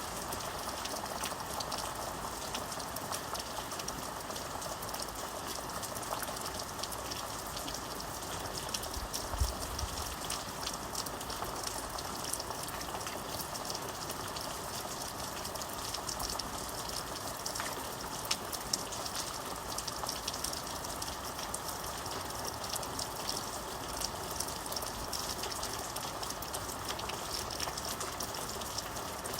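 Steady rain: a constant hiss and patter of many drops, with one brief low thump about a third of the way through.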